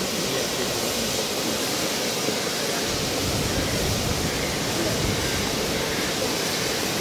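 Steady hiss of steam venting from the narrow-gauge steam tank locomotive Lyd as it stands in steam, mixed with gusty wind rumbling on the microphone.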